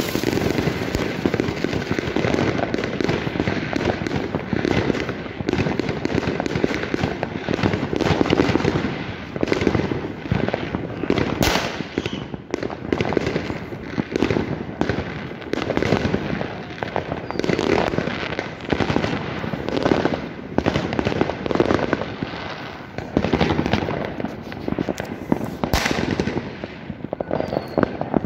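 Fireworks and firecrackers going off all around in a dense, continuous barrage of bangs and crackling, with two especially sharp, loud bangs, one about eleven seconds in and one a couple of seconds before the end.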